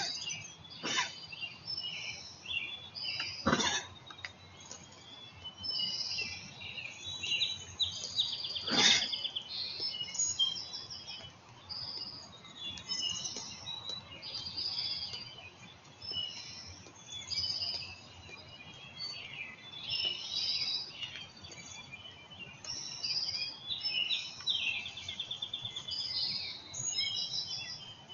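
Small birds chirping and calling continuously. Over them come a few sharp, sudden coughs from a doe, the loudest about nine seconds in. The uploader wonders whether it is a bad cough.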